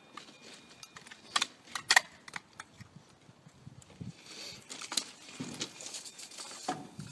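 Handling noise as a part is slid on by hand: a few sharp clicks and knocks, the loudest about two seconds in, with a stretch of rustling from about four to six seconds in.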